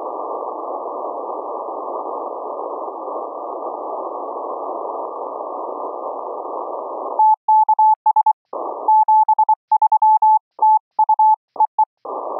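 Band-limited shortwave receiver hiss from an Elecraft K3S tuned to 7034 kHz in the 40-metre CW band. After about seven seconds it gives way to a single Morse code (CW) tone keyed in quick dots and dashes, with the hiss back briefly in one gap and again near the end.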